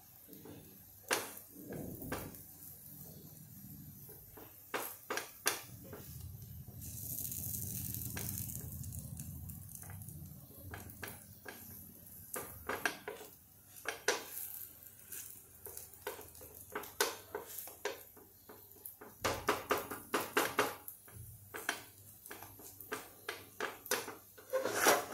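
Fingers patting and pressing soft thalipeeth dough flat on a non-stick tawa: a run of irregular soft taps, coming thicker in the second half. A soft hiss lasts a few seconds about seven seconds in.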